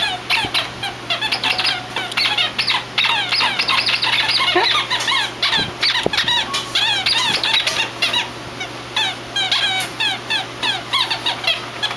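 Squeaky dog toy being squeaked over and over, a dense run of short high squeaks, several a second, that starts suddenly.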